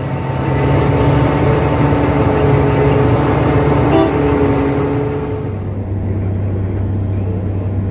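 Diesel engines of Cat 785C mining haul trucks running as the trucks drive by: a loud, steady engine tone with several pitches and a brief click about four seconds in. About five and a half seconds in the sound cuts to a steadier, lower engine hum at the loading face, where an excavator is loading a 785C.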